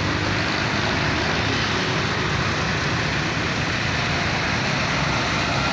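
Diesel engine of a passing medium-size bus running steadily, with tyre and road noise.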